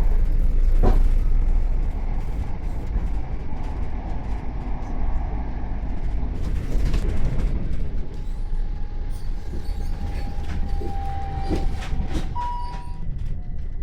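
A train running, a heavy steady rumble with clicks, and a steady high tone joining about two thirds of the way through that steps up in pitch briefly near the end.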